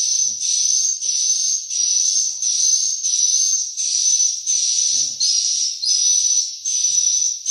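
Swiftlet lure call played on a loop through the tweeter speakers of a swiftlet house: a high, hissy chirp with a thin whistle on top, repeated steadily about three times every two seconds.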